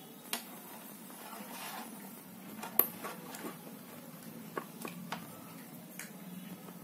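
Scattered small clicks and taps of a screwdriver and a crimped wire terminal against the mixer grinder motor's terminal as the new power cord's lug is screwed down, with one sharper click nearly three seconds in.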